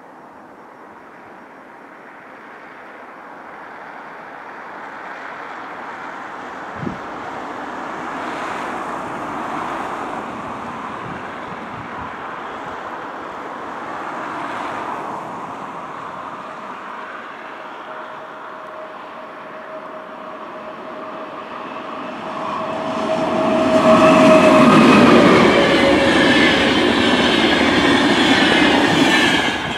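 Passenger train with double-deck coaches approaching and passing close by: a slowly growing rumble that becomes a loud rush of wheels and air for the last several seconds, then falls away. A steady whine is heard over the approach.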